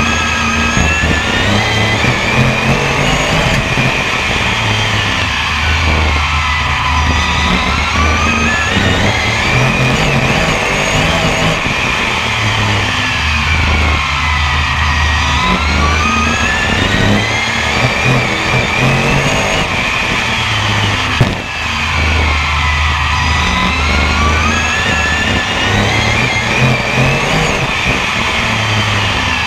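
BriSCA F1 stock car V8 racing engine heard onboard, revving up along each straight and easing off into each turn, so its pitch rises and falls in a repeating cycle every several seconds. One sharp knock comes about two-thirds of the way through.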